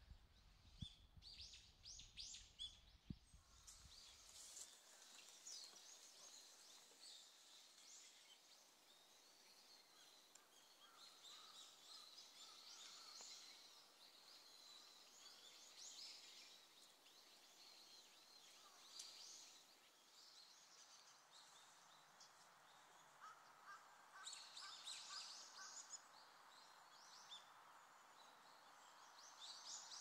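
Faint calls of small wild birds: many short high-pitched chirps throughout, with a brief lower run of repeated notes twice, about halfway and again near the end. A few soft low thumps in the first few seconds.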